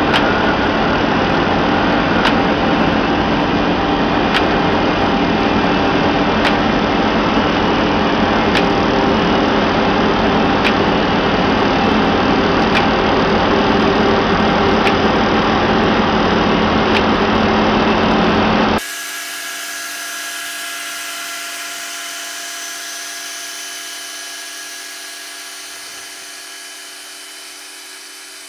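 Rail grinding truck running along the track, its grinding units working the rail with a loud, steady grinding noise over engine hum. About two-thirds of the way through it cuts abruptly to a quieter, steady machine sound with a few held tones that slowly fades.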